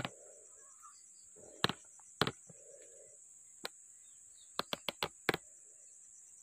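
Steady high insect drone with scattered sharp clicks and snaps. A quick run of five clicks comes around five seconds in.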